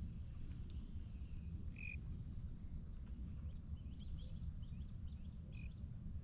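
Riverside outdoor ambience: a bird chirps about two seconds in, then gives a quick run of short high notes over the last half, over a low steady rumble.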